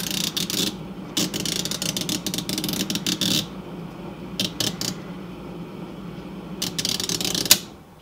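Refrigerator defrost timer being advanced with a screwdriver: its gears ratchet in rapid spells of clicking over the steady hum of the running compressor and freezer fan. Near the end a loud click as the timer switches into defrost, and the hum cuts off.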